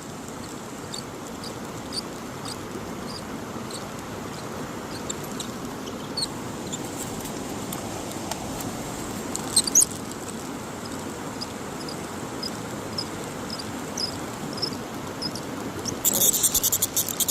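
Mountain stream water rushing steadily, with short high chirps repeating every second or so over it. A burst of rapid clicking comes near the end.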